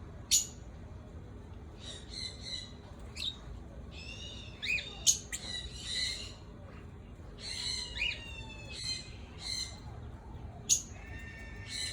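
Parrots calling: a run of short, harsh, pitched calls and squawks, with three sharp, very short loud calls about half a second in, around five seconds and near eleven seconds, and a steady held whistle at the end.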